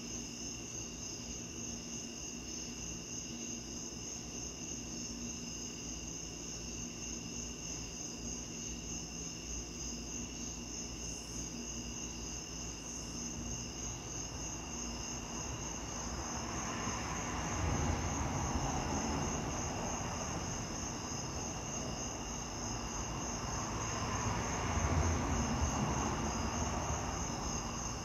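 Crickets chirping in a steady, fast pulsing trill. In the second half, two swells of low rushing noise rise and fade, the second a little louder, like distant passing traffic.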